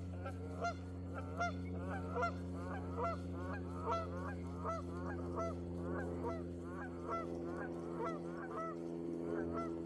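Geese honking over and over, about two or three honks a second, over a steady low hum.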